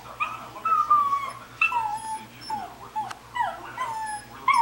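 Newborn baby fussing: a string of about eight short cries in quick succession, each falling in pitch.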